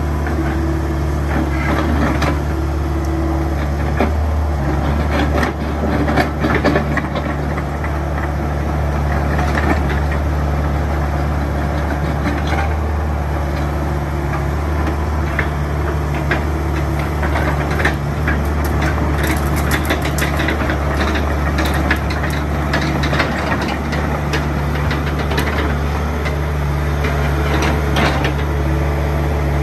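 Komatsu PC75UU-2E mini excavator's diesel engine running steadily, with scattered clicks and rattles from the machine's tracks and arm as it works and moves; the rattling is busiest a little past the middle.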